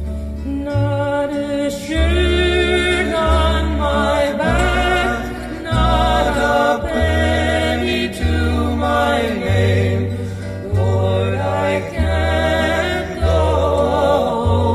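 Vocal music played over a car audio system inside the cabin: singing voices with vibrato over deep bass notes that change about once a second.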